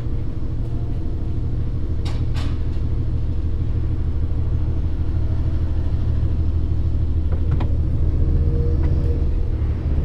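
Truck diesel engine idling, a low steady hum, with two light clicks about two seconds in.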